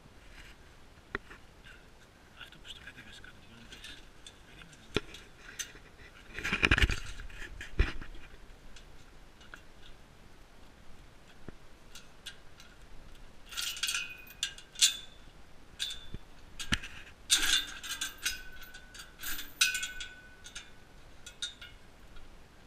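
Metal gate and chain being handled: scattered clicks and knocks, a loud clank about seven seconds in, and bursts of rattling with short high squeaks in the second half.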